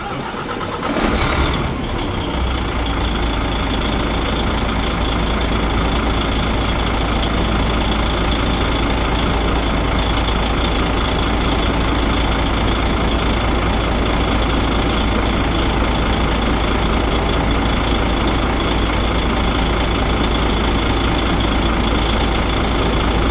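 A DAF truck's six-cylinder diesel engine starting, with a brief loud surge about a second in, then idling steadily. The relative compression test just before read even across all six cylinders (99–100).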